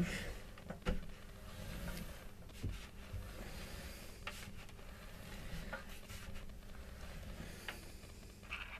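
Quiet handling noise from work inside a dryer: a few light clicks spaced one to two seconds apart and some rubbing, over a faint steady hum.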